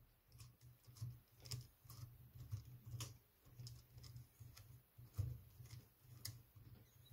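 Faint, scattered clicks and light knocks from hands handling and fitting the parts of a small cordless chainsaw during assembly.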